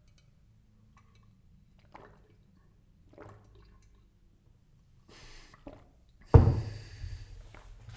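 A person sipping tea from a mug, with a short hissy sip about five seconds in and a sharp knock about six and a half seconds in followed by about a second of noisy sipping.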